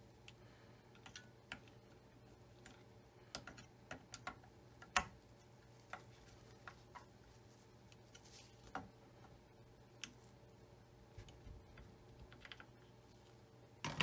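Irregular small metallic clicks and taps from a screwdriver working a screw in the hook mechanism of a Singer Featherweight 221 sewing machine. The clicks are scattered and loosely bunched, and there is a louder knock right at the end.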